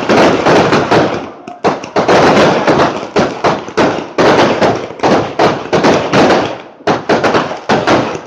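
Rapid, nearly continuous barrage of aerial firework bursts and crackers: loud overlapping bangs and crackling, several a second, with short breaks about a second and a half in and again near seven seconds.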